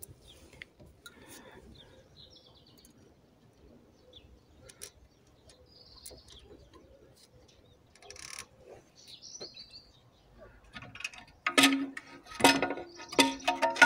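Metal parts and tools being handled: scattered light clicks and a few faint bird chirps, then, about two seconds from the end, a loud clatter of metal pieces clinking and ringing.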